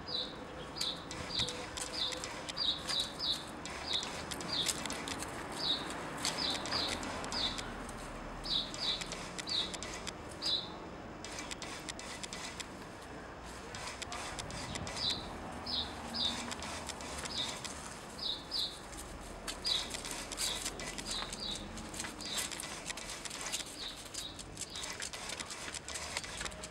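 A small bird chirping: short, high, falling notes, often in quick pairs or runs, with a pause in them about halfway through. Scattered light clicks and taps sound alongside.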